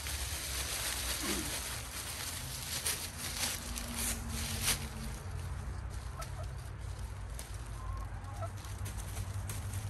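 A long-handled digging tool working into soil and dry leaf litter, with sharp scrapes and crunches, the loudest about three and almost five seconds in. Chickens cluck a few times in the background.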